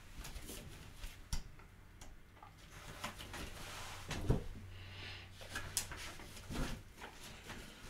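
A few faint taps and soft rustles as a paperback picture book is opened and its pages handled and turned, over quiet room tone.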